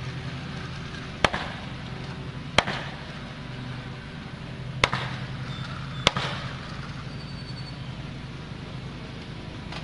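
Four sharp, separate impacts from construction work, irregularly spaced, over a steady low hum.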